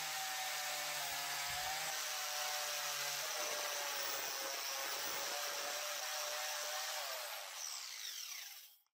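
Motor-driven spinning brush wheel running with a steady whine and a scouring hiss as a threaded steel collar from a hand drill is pressed against it to strip rust. Near the end the pitch falls and the level sags, then the sound cuts off suddenly.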